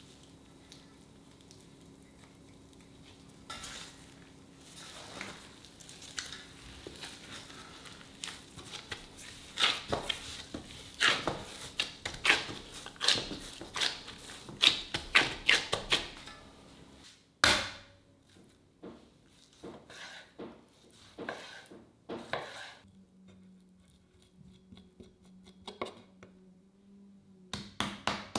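Kitchen preparation sounds: utensils and dishes knocking and clicking in a busy run that thins out, with one louder knock about two-thirds of the way through. A low steady hum comes in for a few seconds near the end.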